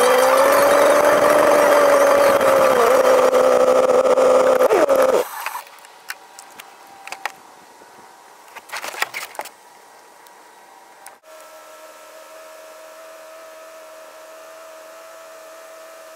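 VW-based dune buggy's engine running while driving, its note dipping in pitch and then holding steady before cutting off abruptly about five seconds in. After that it is much quieter with a few scattered clicks and knocks, and from about eleven seconds a faint steady hum.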